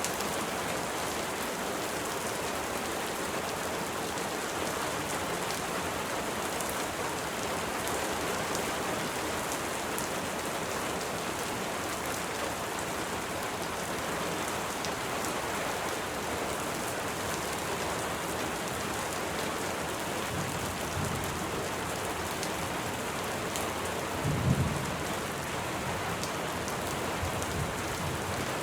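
Steady rain falling, a constant even hiss. Thunder rumbles low about twenty seconds in, followed by a short, louder boom of thunder a few seconds later.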